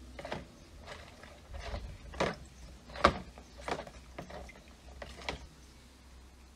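A series of about seven irregular knocks and clacks of hard objects, the loudest about three seconds in, over a faint low hum.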